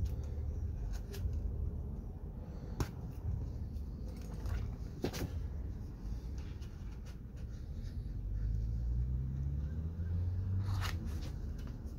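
Plastic pry tool and hands working a Lexan pane into a Humvee door window frame's rubber glass channel: scraping and rubbing with a few sharp clicks, and a low rumble in the second half.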